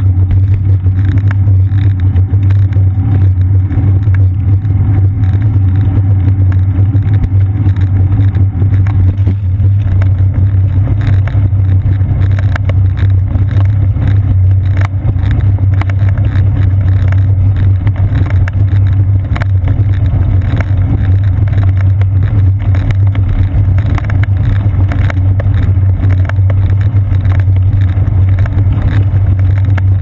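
Steady wind rumble and road vibration picked up by a seat-post-mounted GoPro Hero 2 on a moving bicycle: a loud low drone with frequent small knocks and rattles. About a third of the way in the knocking gets busier as the tyres run from asphalt onto a brick street.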